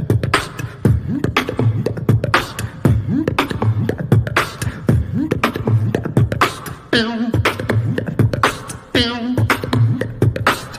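Human beatboxing in an Indian style: a fast, steady pattern of vocal kick-drum, snare and hi-hat sounds over a pulsing bass. Twice, about seven and nine seconds in, it breaks into a short wavering sung melody line.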